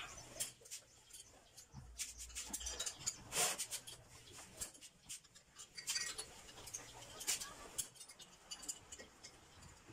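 Faint, irregular clicks and light metallic taps of hand tools being worked on the cylinder head and spark plug of a bare two-stroke motorized-bicycle engine.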